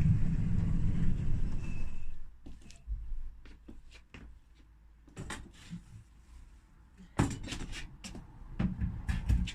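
A power drill runs steadily for about two seconds and then stops. Scattered wooden knocks and clunks follow as the cupboard parts and hinges are handled, with louder clunks near the end.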